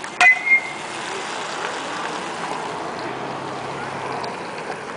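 Metal youth baseball bat hitting a pitched ball with a sharp ping and a brief ring, followed a moment later by a second short, loud sound. After that, only steady outdoor background noise.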